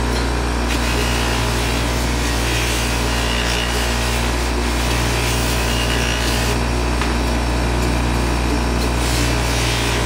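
Ryobi BG612G 6-inch bench grinder running steadily, its motor humming. A brass piece is held against the spinning wheel, making a continuous rubbing hiss.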